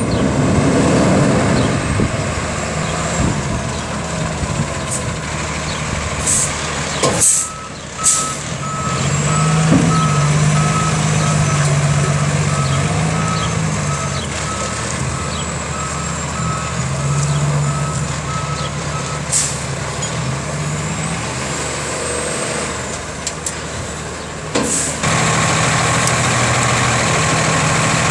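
Diesel engine of a 2013 Freightliner 108SD vacuum truck running as the truck moves and pulls up. A backup alarm beeps steadily from about seven seconds in to about nineteen seconds, with a few short air-brake hisses around it. The engine settles into a steady, close hum near the end.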